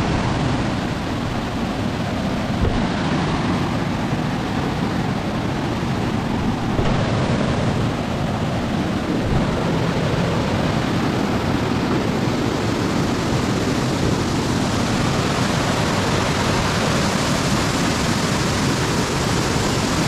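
Waterfall cascading down sloping rock slabs into a pool: a loud, steady rush of falling water.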